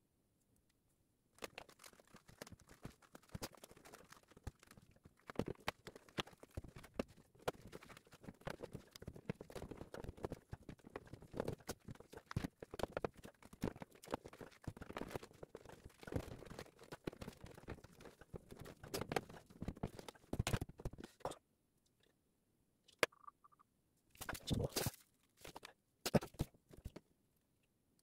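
Hands handling wires, plastic fittings and hose inside the open front of a floor-standing air conditioner: irregular small clicks, taps and rustles. They stop for about two seconds a little past two-thirds of the way through, then come back in a few louder bursts.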